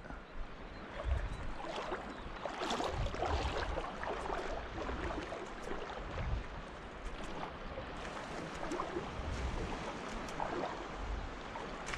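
Shallow saltwater lapping and splashing, with small splashes and low wind rumble on the microphone.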